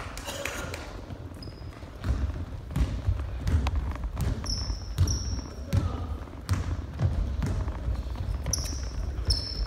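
Basketball dribbled on a wooden gym floor, a steady bounce about every 0.7 s from about two seconds in, with short high sneaker squeaks around the middle and near the end.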